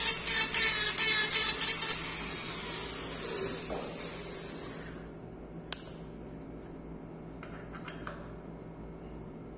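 Electric micromotor handpiece with a bur grinding acrylic while finishing a dental retainer. It is then switched off and winds down over a few seconds, its pitch falling. A sharp click follows, then a few lighter clicks as the bur is taken out of the collet.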